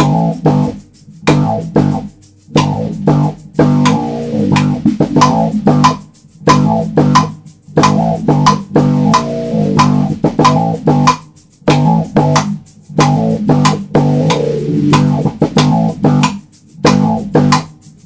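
Instrumental music: bass guitar and guitar playing a choppy, stop-start riff with sharp percussive hits, broken every second or two by brief gaps.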